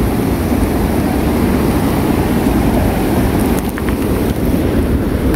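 Fast mountain river rushing over boulders: a loud, steady wash of water.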